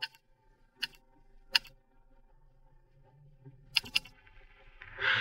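A few sharp single clicks about a second apart, then a quick double click, from a laptop being operated by hand. Just before the end a louder rush of noise sets in.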